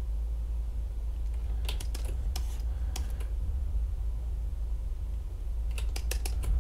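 Computer mouse and keyboard clicks while working in Illustrator: a few single clicks about two to three seconds in, then a quick run of several clicks near the end, over a steady low hum.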